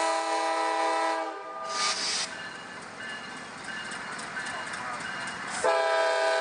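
Diesel freight locomotive's air horn sounding a chord of several notes, breaking off about a second in and sounding again near the end. In between, the rumble of the passing train with faint clicking from its wheels on the rails.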